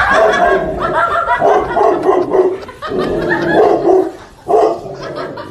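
A large dog barking repeatedly in a string of loud calls.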